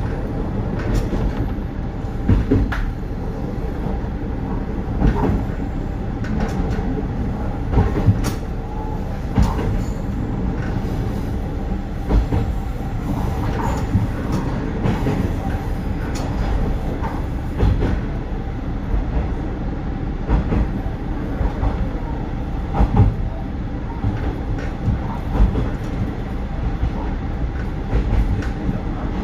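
Isumi Railway KiHa 350 diesel railcar running along the line, heard from inside the car: a steady diesel engine hum under repeated clacks of the wheels over rail joints.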